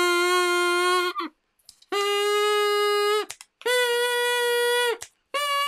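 A paper-straw double-reed pipe (straw oboe) blown in four held notes, each about a second and a half long with short gaps between them. Each note is higher than the last because the straw is snipped shorter between blows, leaving less air inside to vibrate.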